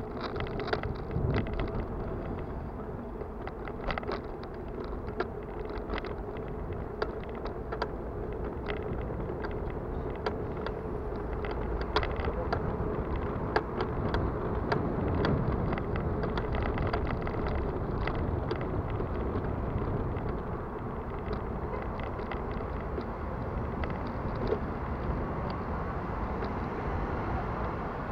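Bicycle being ridden, its drivetrain clicking and rattling irregularly over steady wind and road noise. It sounds like a bucket of bolts: the bottom bracket is worn out, and the rear sprocket and chain are worn too.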